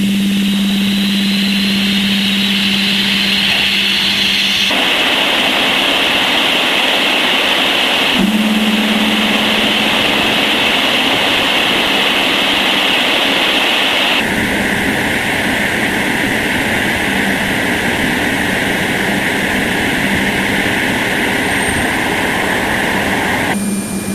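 Sonified Voyager 2 radio/plasma-wave recording from Uranus: a continuous hissing noise over a low steady hum. The hiss changes character abruptly three times.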